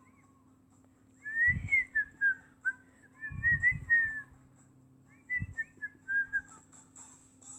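Whistling in three short phrases of gliding, up-and-down notes, with dull low bumps under the louder notes.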